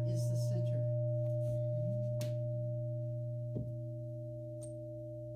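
Large frosted quartz crystal singing bowl ringing on after being played: a steady low hum with several higher overtones above it, slowly fading. A light knock sounds a little past halfway.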